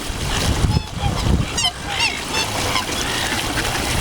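Birds calling: a few short, high squawks about a second and a half to two and a half seconds in, over a low rumble.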